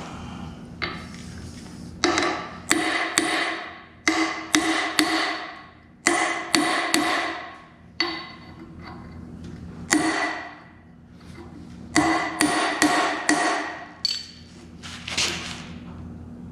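Hammer striking steel on the cutter-wheel shaft of a Rayco RG50 stump grinder, knocking loose parts to replace the pillar bearings. Sharp, ringing metal blows come in quick bursts of two to four, a second or two apart, over a steady low hum.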